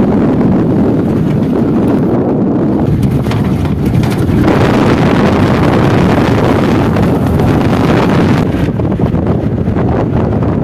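Wind buffeting the microphone: a loud, steady rushing rumble that starts suddenly and grows hissier for a few seconds in the middle.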